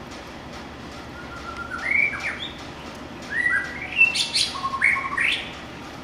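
White-rumped shama singing: two short phrases of clear whistled notes with quick upward and downward slides, the second phrase longer and louder.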